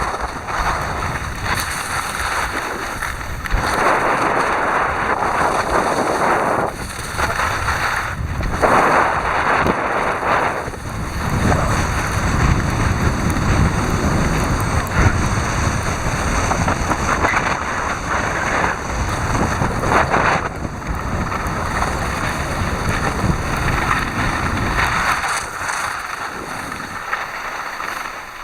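Wind buffeting the microphone while skiing: a loud rushing noise that swells and eases in gusts.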